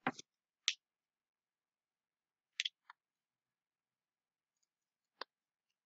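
Near silence broken by a few faint, short clicks: one at the start, one just under a second in, a quick pair about two and a half seconds in, and one more near the end.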